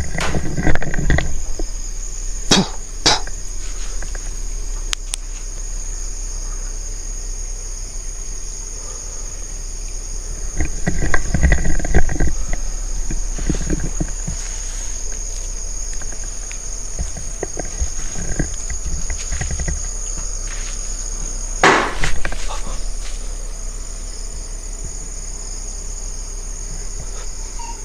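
Crickets chirring steadily in a high, unbroken trill at night. A few sharp knocks sound, two close together a few seconds in and one louder one near the end, with bumping and rustling from handheld movement.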